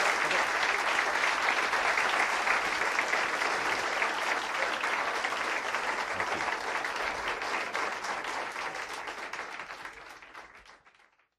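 Live audience applauding, a dense patter of many hands clapping that fades out near the end.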